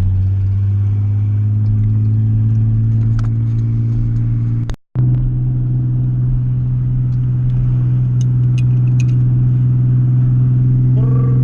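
Car engine and drivetrain running steadily while driving, its pitch creeping slowly upward, then cutting out completely for a split second just under five seconds in before carrying on at a steady, slightly higher pitch.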